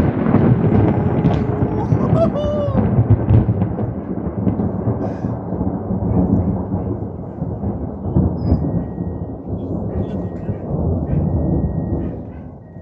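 Thunder: a loud, long rolling rumble that slowly dies down, then drops away near the end.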